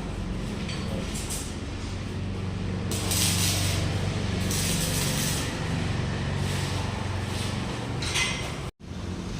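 A steady machine hum with several bursts of hissing noise over it. The sound cuts out for an instant near the end.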